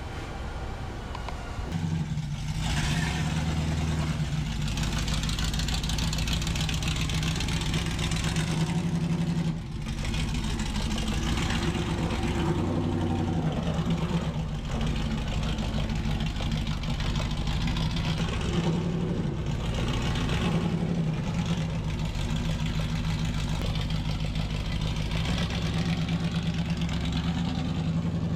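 An engine running steadily, growing louder about two seconds in, with slight shifts in its pitch.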